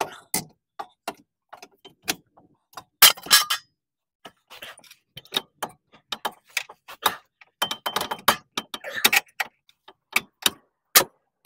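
Irregular metal clicks and clanks as a new steel lower control arm is worked by hand into the subframe, knocking against the mounting points and tools, with louder scraping rattles about three seconds in and again around eight seconds.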